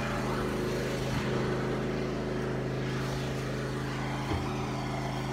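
John Deere riding lawnmower engine running steadily, having just caught after a stubborn cold start.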